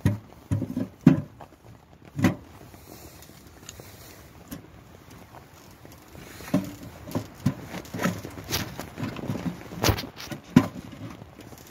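Logs knocking and scraping against the firebox of a wood-burning stove as they are pushed in through the door: irregular wooden clunks, a few near the start and a busier run in the second half.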